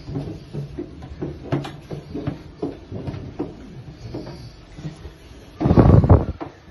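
Footsteps going down wooden stair treads, each step a hollow knock, a few to the second. Near the end comes one loud, muffled, low rumble lasting about half a second.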